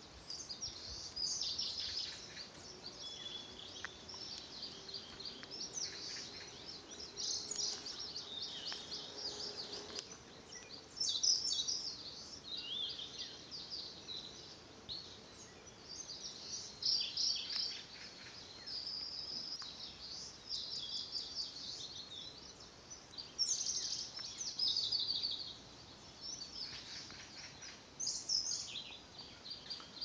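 A chorus of small birds chirping and singing, several at once, in quick, high, overlapping calls that come in clusters with short gaps.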